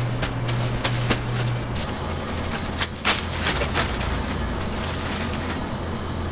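Plastic bread bag rustling and crinkling as a gloved hand reaches in for a slice, over a steady low hum. Two sharp clicks come about three seconds in.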